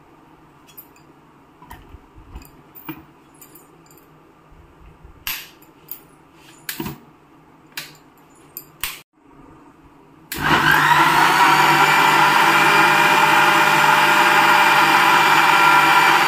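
A few clicks and knocks as the plastic jar is handled and fitted onto the mixer grinder. About ten seconds in, the Sujata mixer grinder's motor switches on and runs loud and steady, grinding boiled spinach and its cooking water into a purée.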